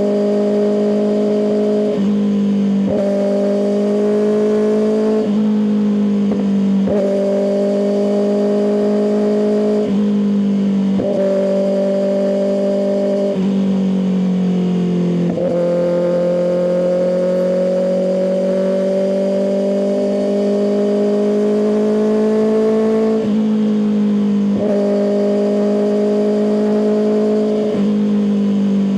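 Kawasaki ZX-6R's inline-four engine running through an M4 aftermarket exhaust while riding, its note jumping abruptly in pitch about ten times with gear and throttle changes and climbing slowly for several seconds past the middle.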